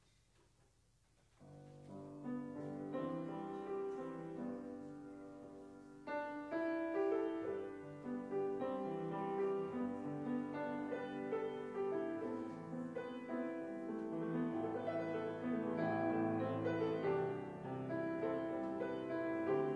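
Near silence, then piano music begins about a second and a half in, becoming fuller and louder around six seconds in.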